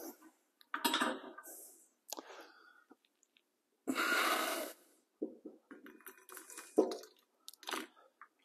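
Metal clinks and knocks from the hydraulic cylinder's piston rod and gland being fitted back into the cylinder of a two-post car lift, with a longer rubbing noise about four seconds in.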